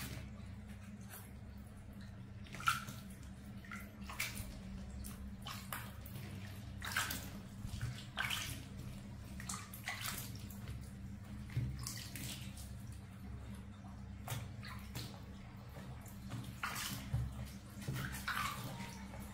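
Water splashing and dripping in short, irregular bursts as a wet baby monkey is washed by hand with water from a plastic dipper, over a steady low hum.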